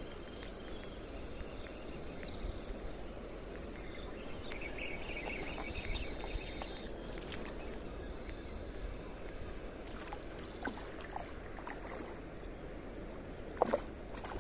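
Steady rush of a fast-flowing river, with a few faint clicks near the end.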